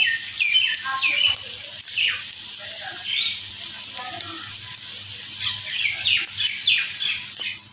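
Okra sabzi frying in oil in a pot, a steady sizzle, at the stage where the oil has begun to separate from the masala. Over it, short falling bird chirps repeat throughout, with a low steady hum beneath.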